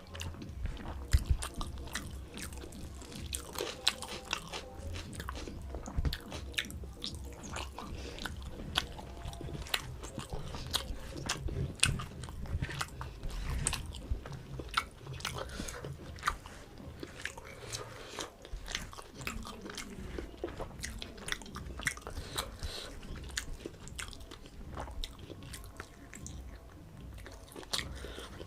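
Close-miked eating of a rice meal: steady chewing with many small, irregular crunches and mouth clicks, over a low steady hum.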